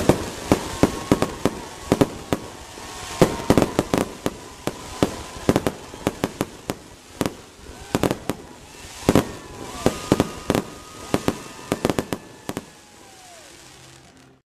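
Fireworks going off: a rapid string of sharp bangs, several a second and uneven in loudness, with a few faint falling whistles. The sound cuts off abruptly near the end.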